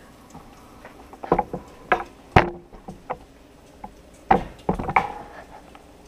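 Handling noise: a handful of sharp knocks and clatters in two clusters, one with a short ringing tail about two and a half seconds in, over a faint steady background.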